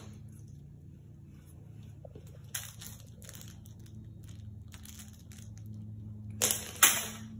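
Puppy biting and tugging at a plush toy, making short bursts of crunching and rustling that are loudest near the end.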